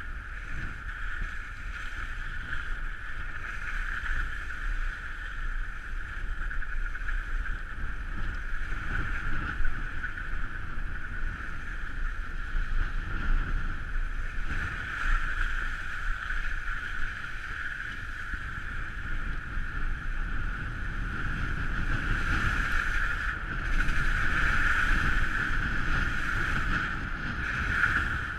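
Steady wind and road noise from a car driving along: a constant rushing hiss over a low rumble of tyres and buffeting on a camera mounted outside the car. It gets somewhat louder in the last several seconds.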